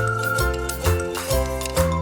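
Background music with a steady beat: pitched melody notes over a bass line that changes about every half second.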